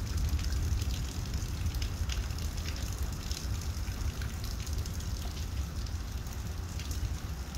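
Steady rain falling, with many scattered sharp drop ticks over a constant low rumble.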